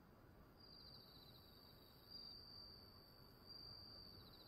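Faint crickets trilling in a high, steady tone that swells slightly twice: night-time cricket ambience.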